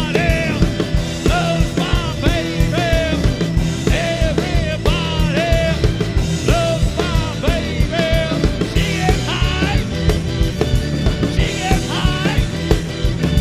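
Live rock band playing with a steady driving beat: a singer over drums, keyboard and electric guitar, with short repeated gliding phrases above the beat.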